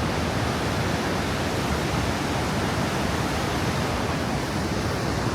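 Vøringsfossen waterfall rushing: a steady, unbroken roar of falling water.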